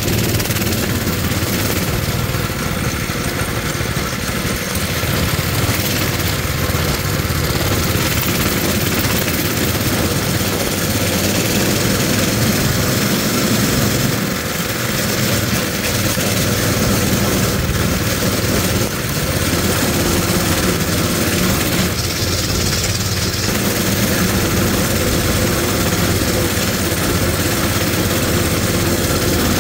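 Coleman mini bike's small single-cylinder engine running steadily while being ridden.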